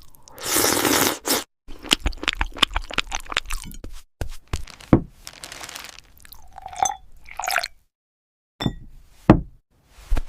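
A cat crunching and chewing food: rapid irregular crunches and sharp cracks, with a loud grinding burst about half a second in and two short squeaky tones around seven seconds in.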